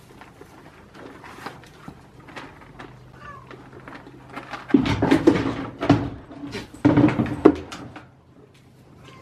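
Goats eating crackers from a bowl with faint crunching and clicks, then loud goat bleats from about five to seven and a half seconds in.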